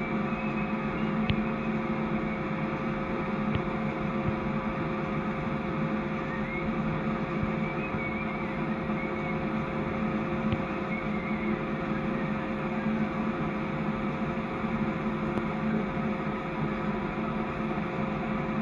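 Sawmill machinery running steadily with an even hum.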